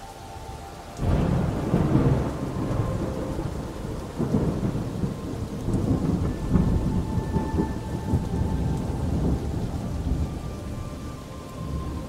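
Thunder breaks in suddenly about a second in and rolls on in waves over steady rain, easing near the end. Faint long loon wails sound behind it.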